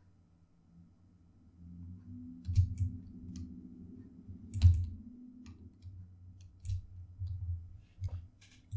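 Computer mouse and keyboard clicks: about eight irregular clicks, the loudest a little past the middle, over a faint low hum.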